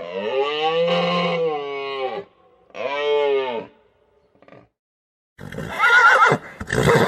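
Animal calls: two long, smooth calls, then a higher, quavering call starting about five and a half seconds in.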